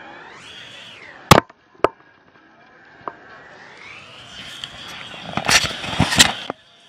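Handling noise on an action camera mounted on an inflatable tube. Two sharp loud knocks come about a second in. A rubbing, scraping rush builds in the second half, with more knocks, as a hand works on the camera and its mount.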